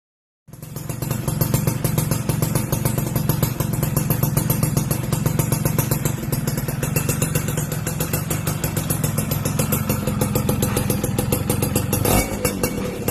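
Yamaha F1ZR's 110 cc two-stroke single-cylinder engine idling steadily through its exhaust, starting about half a second in. Near the end the throttle is blipped and the revs rise.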